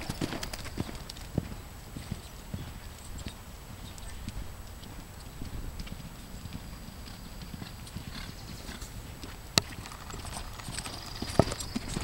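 Horse hoofbeats thudding irregularly on the soft dirt footing of a show arena. A single sharp click stands out about two-thirds of the way through.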